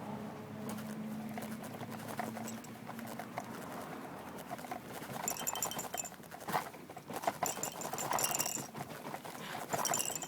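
Stroller rolling over a bumpy surface, its wheels and frame clattering. There is a steady hum at first, then from about five seconds in a run of irregular knocks and rattles.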